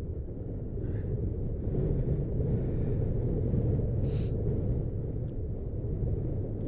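Wind buffeting the microphone during a ride, a steady low rumble, with a brief high hiss about four seconds in.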